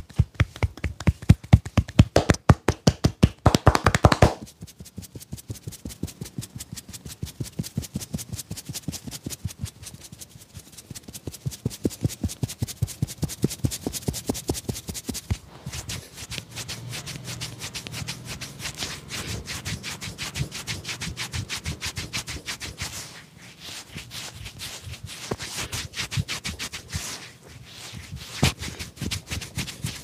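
Barber's hands drumming rapidly on a man's head in a percussive head massage, loud for about the first four seconds. It then gives way to quieter, fast rubbing of fingers through wet hair on the scalp.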